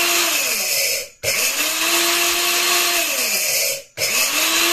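High-speed electric grain mill pulsed on and off while grinding wheat into coarse whole wheat flour: a loud motor whine over a steady hiss. The pitch climbs as the motor spins up and sinks as it winds down. It cuts out briefly about a second in and again near the end, restarting each time.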